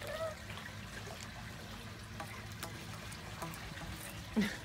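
Faint, steady trickling of pool water, with a low hum underneath.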